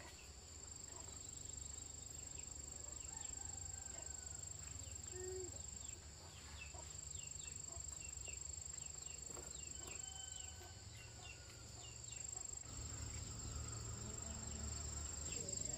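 Insects droning in one steady high-pitched tone, with short chirps scattered over it and a low rumble underneath.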